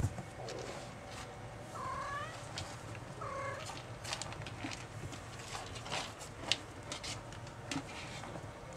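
A kitten's short high mews, twice in the first few seconds, then a run of small scratchy clicks as a Maine Coon kitten digs in pellet cat litter.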